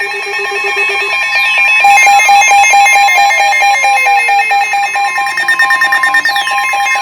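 NOAA Weather Radio's steady 1050 Hz warning alarm tone, sounding from about a second in over the rapid electronic beeping of weather alert receivers, with a few falling whistle-like sweeps. It announces a new severe thunderstorm warning being broadcast.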